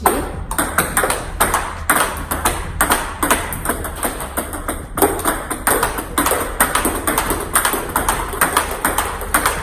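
Celluloid-type table tennis ball clicking off rubber paddles and the table in a steady backhand block rally, a quick, even run of sharp clicks several times a second.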